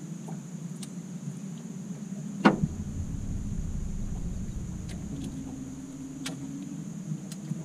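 Catfish being landed in a landing net on a boat: one sharp impact about two and a half seconds in as the net scoops the fish, followed by a couple of seconds of low rumbling. A steady low hum runs underneath.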